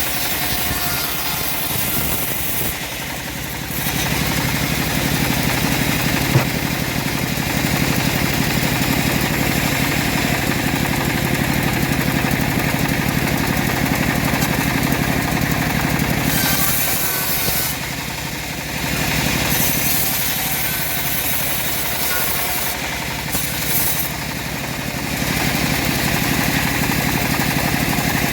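Engine-driven homemade bandsaw sawmill running steadily. The sound gets louder about four seconds in and eases off briefly twice in the second half.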